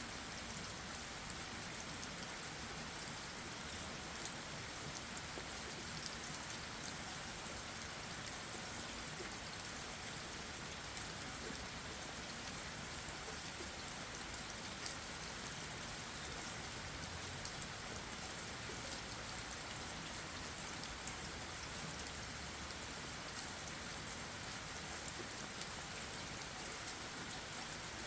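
Steady rain falling on leaves and the forest floor, a continuous hiss with many small drip and patter ticks.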